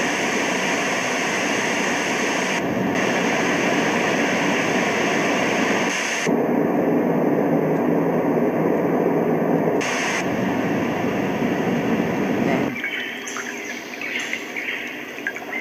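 A white noise machine playing recorded rain and stormy-weather sounds as a steady rushing hiss. It switches abruptly to a different track several times, about 3, 6 and 10 seconds in. About 13 seconds in it changes to a quieter, trickling sound.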